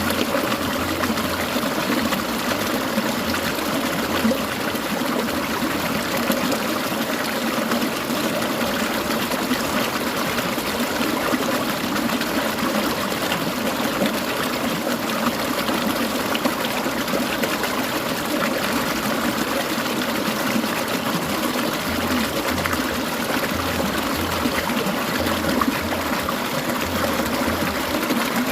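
Clear mountain stream babbling and trickling over rocks in a steady, even flow.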